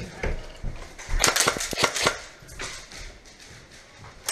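Airsoft gun firing a quick string of sharp shots, about a second in and lasting about a second.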